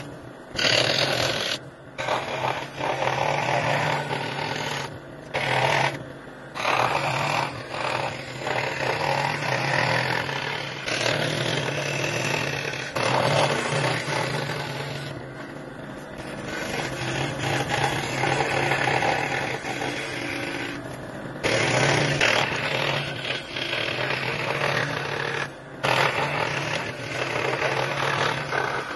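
A small electric power tool motor running and working wood in long stretches, stopping briefly several times.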